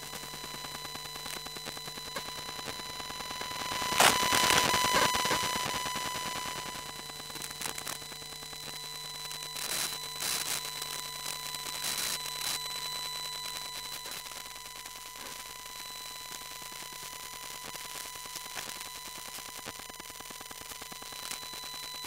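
Electromagnetic interference from a wifi router, picked up by a telephone pickup coil: a steady electric buzz of several fixed tones under fast crackling static. A loud burst of static comes about four seconds in and fades over a couple of seconds, and a cluster of shorter crackling bursts follows around ten to twelve seconds.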